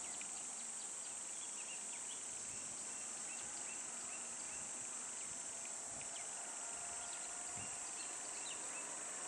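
Steady, high-pitched drone of an insect chorus, with a few short high chirps scattered over it.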